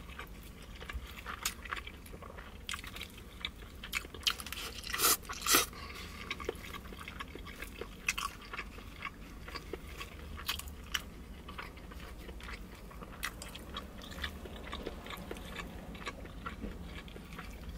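A person chewing and biting food, with many short wet clicks and smacks and two louder ones about five seconds in.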